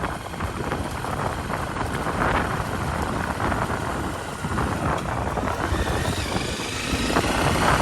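Motorcycle underway: engine and road rumble mixed with wind on the microphone, growing a little louder near the end.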